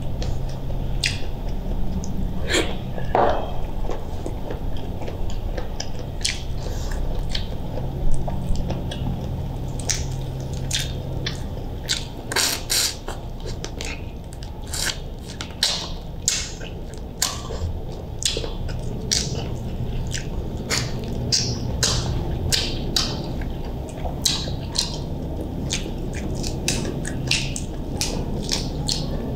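Close-miked eating of boiled shrimp: chewing and crunching, with many short sharp clicks and cracks as the shells are peeled and bitten.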